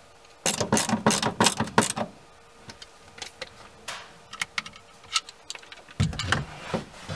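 Rapid clicking and rattling of a screwdriver and small metal screws for about a second and a half, then scattered light ticks, while fastening the screws of a plastic inspection port. A dull bump about six seconds in.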